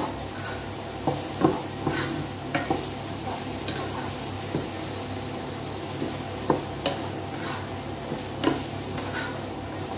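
Tofu and sliced carrot frying in a pot with a steady sizzle, stirred with a wooden spatula that knocks against the pot every second or so.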